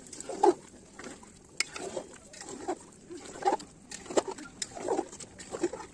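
Metal spoon stirring chicken curry in an aluminium pot, scraping the sides and bottom in irregular strokes about twice a second, with an occasional sharp clink of metal on metal.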